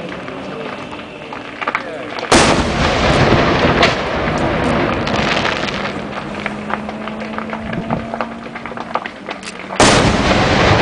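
Aerial firework shells going off: two loud bangs, about two seconds in and near the end, with many smaller pops between.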